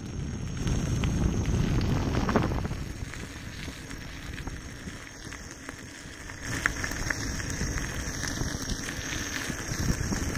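Tyre of a Gotway MSuper3 electric unicycle rolling over a gravel path with a crackling crunch, under wind rumbling on the microphone. It eases off in the middle and picks up again toward the end.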